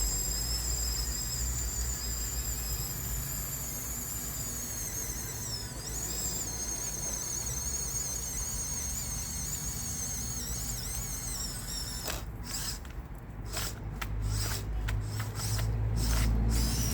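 Huina 1554 RC bulldozer's electric drive motors and gearboxes whining at a high pitch over a low rumble. After about twelve seconds the whine cuts in and out repeatedly in short spurts.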